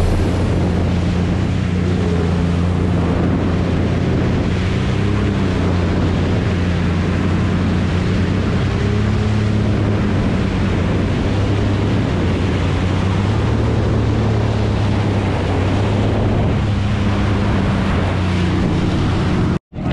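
Jet ski engine running steadily at speed, a droning hum with a slight wavering in pitch, under heavy wind on the microphone and rushing water spray. The sound cuts out for a split second near the end.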